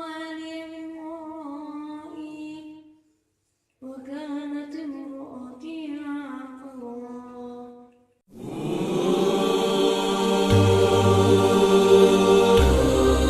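A solo voice reciting the Quran in melodic tajweed style: two long ornamented phrases with a short break between them. About eight seconds in, louder music with a deep bass comes in.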